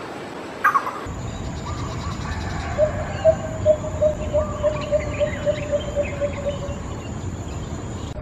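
A bird calling a steady series of short, hollow notes of one pitch, about two or three a second for some four seconds, over faint insect chirring. A single sharp click comes just under a second in.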